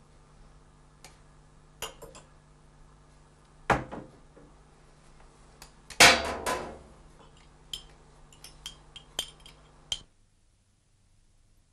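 Crockery and cutlery handled in a kitchen: scattered clinks of a spoon against a ceramic cup, a sharp knock about four seconds in, and a louder clatter of several hits around six seconds, as of a bowl or cup set down on the counter. The sounds stop abruptly near the end.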